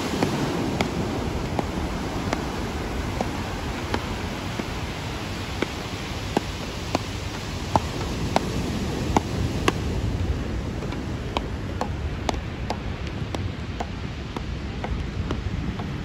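Beach paddle ball (matkot) rally: sharp knocks of the paddles hitting the ball, a little more than one a second, over a steady rush of surf and wind.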